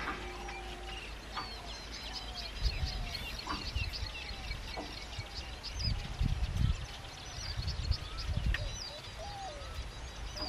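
A chorus of birds calling: many short high chirps and lower whistled, sliding notes overlapping throughout. Low rumbling bursts come and go, loudest around the middle.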